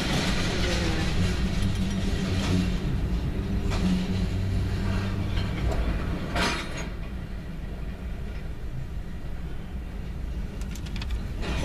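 Freight train cars rolling past on the rails: a steady rumble of wheels on track, broken by a few sharp clanks spread through.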